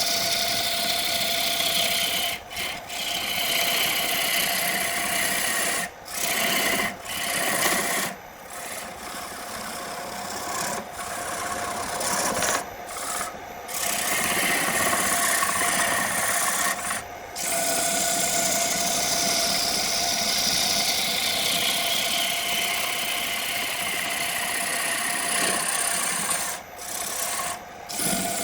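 Wood spinning on a lathe with a cutting tool or abrasive rubbing against it: a steady rasping scrape over the lathe's motor hum, shifting slowly in pitch as the tool moves along the piece. It is broken by several brief pauses where the tool comes off the wood.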